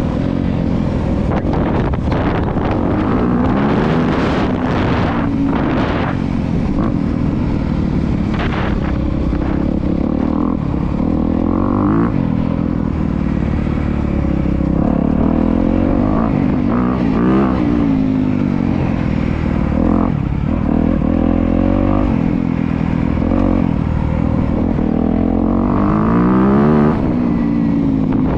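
Honda CRF250R dirt bike's four-stroke single-cylinder engine being ridden, its pitch rising and falling again and again as the throttle is opened and closed.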